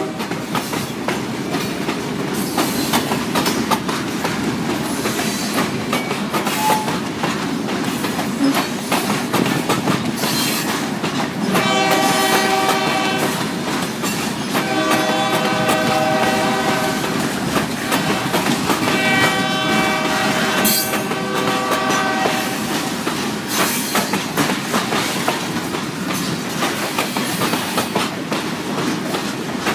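Freight train of hopper cars rolling past, with steady wheel noise and the clatter of wheels over rail joints. The locomotive horn up ahead sounds three long blasts about twelve, fifteen and nineteen seconds in.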